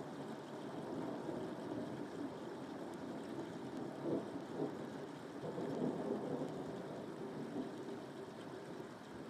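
Rain with a rolling rumble of thunder that swells and fades unevenly, loudest about four to six seconds in.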